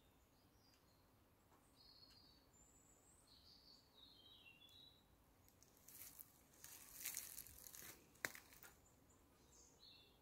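Faint bird chirps in woodland, then from about six seconds in, footsteps rustling and crackling through dry leaf litter and undergrowth, with one sharp snap near the eight-second mark.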